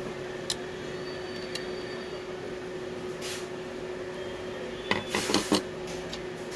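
A steady low hum with a few single clicks, then a short clatter of rapid clicks and knocks about five seconds in.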